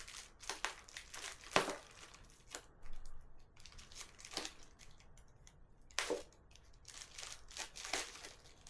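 Plastic packaging being torn open and crinkled by hand, in scattered short rustles and crackles with a few sharper clicks, the loudest about one and a half seconds and six seconds in.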